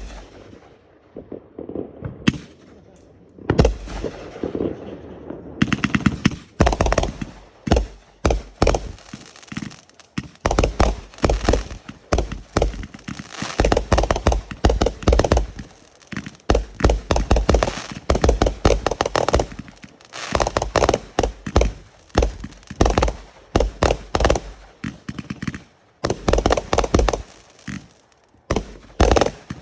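Consumer fireworks going off: a few separate bangs at first, then rapid volleys of bangs and crackles in quick clusters, one after another.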